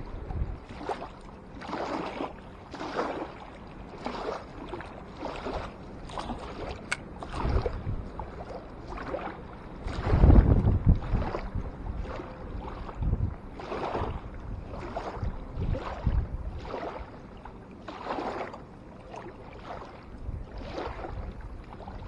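Small waves lapping and splashing at the lake's edge in irregular splashes about once a second, with gusts of wind rumbling on the microphone, strongest about ten seconds in.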